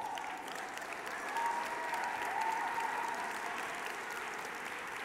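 Audience applauding, swelling in the first second or so and then slowly easing off.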